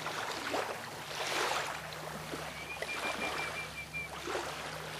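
Small waves washing on a beach, swelling and fading every second or so, under a steady low hum. About halfway through comes a quick run of short, even high notes at one pitch.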